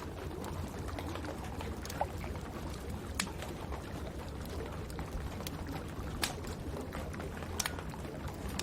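Wood fire crackling, with a few sharp pops standing out, over a steady hiss of rain.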